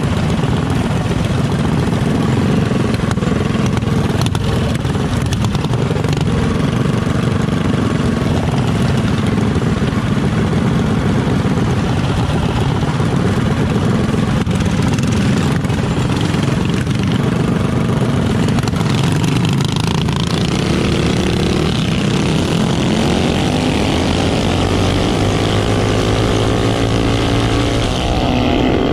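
Several mini bikes' small engines running together, idling at first, then revving and rising in pitch as the bikes pull away, from about twenty seconds in.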